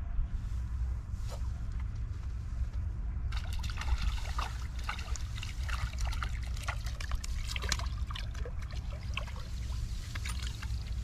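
A hooked fish splashing and thrashing at the water's surface: a rapid, irregular patter of small splashes starting about three seconds in, over a steady low rumble of wind on the microphone.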